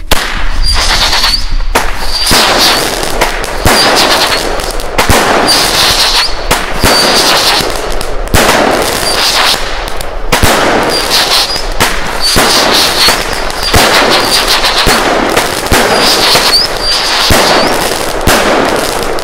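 Nico Feuerwerk 'Angel Eyes' 12-shot, 23 mm fireworks battery firing its shots one after another, about one every one and a half seconds. Each rises with a short high whistle and bursts with a bang, followed by crackling stars.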